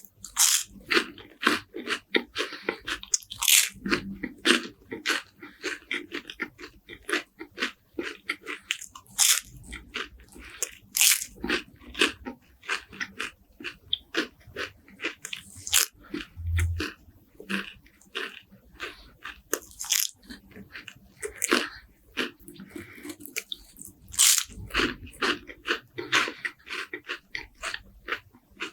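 Close-miked crunching of crispy wafers being bitten and chewed, with honey and walnuts: dense, irregular crackles several times a second, with brief pauses between bites.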